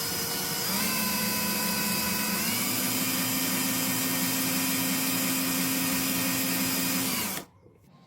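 A small motor, like a power tool's, runs with a steady whine. It steps up in speed about a second in and again about two and a half seconds in, then cuts off suddenly near the end.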